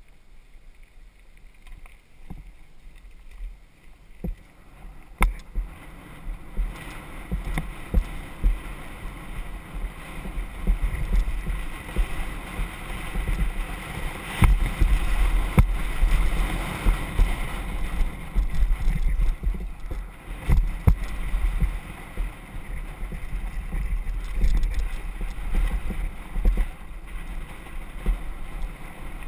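Wind buffeting a helmet-mounted camera's microphone while a mountain bike rolls fast over a dirt and gravel trail, with frequent sharp knocks and rattles as the bike hits bumps. The noise grows louder over the first ten seconds or so.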